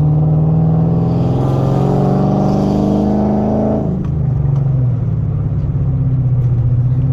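Dodge Challenger's Hemi V8 engine pulling under acceleration, its pitch rising for about three seconds, then dropping sharply about four seconds in as the revs fall, and running on steadily.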